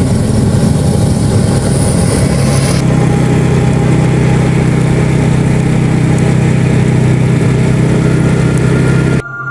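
Small motor scooter engine running steadily as it is ridden along a road, with road and wind noise; the hiss in the top end drops away about three seconds in.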